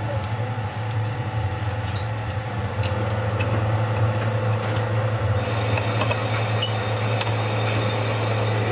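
Steady low mechanical hum of a workshop machine running, with a few faint metallic clicks as a hex key turns the housing bolts of a hydraulic pump clamped in a vise.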